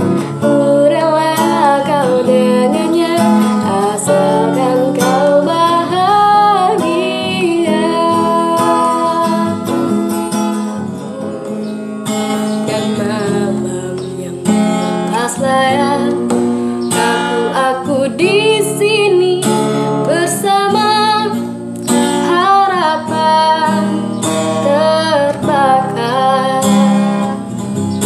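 A young woman singing a melodic song to her own acoustic guitar accompaniment, the music changing abruptly about twelve seconds in.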